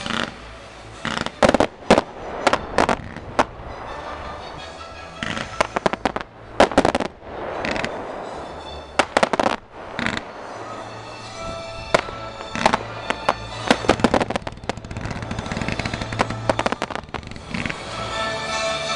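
Fireworks display: many sharp bangs and crackles of shells and fountains bursting, some in quick runs, with the show's accompanying music playing underneath.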